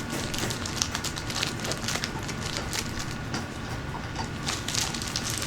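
Small moonstones clicking and rattling against one another as they are handled, a rapid, irregular scatter of light clicks.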